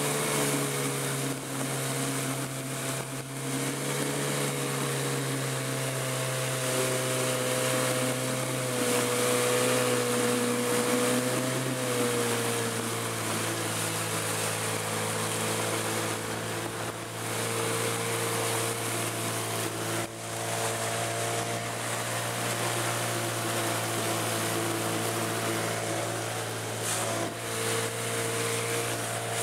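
Evinrude Sportwin 9.5 hp two-cylinder two-stroke outboard motor running steadily, its pitch easing down a little about twelve seconds in.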